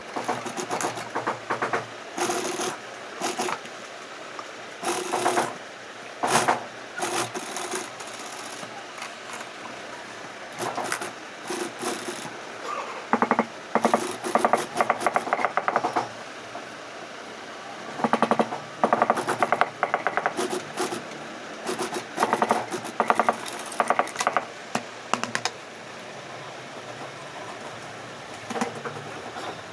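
Industrial single-needle sewing machine stitching sheepskin leather jacket panels in short runs of rapid stitches, starting and stopping many times as the pieces are fed and turned. It goes quieter near the end.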